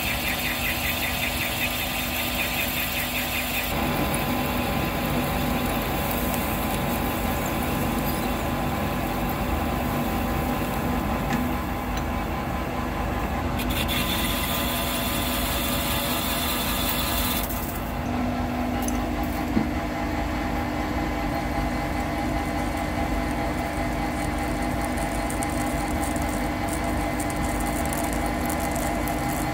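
Metalworking machine running steadily, its tone shifting about four seconds in, with a higher hiss added for a few seconds near the middle.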